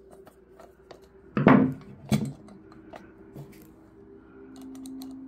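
A screwdriver working the screws of a clock's back panel while hands handle the panel and the clock case: small scattered clicks and scrapes, with two louder knocks about a second and a half and two seconds in.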